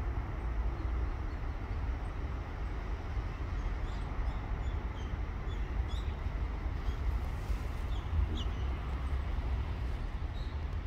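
Outdoor ambience: a steady low rumble, with short, faint high chirps every second or so from small birds.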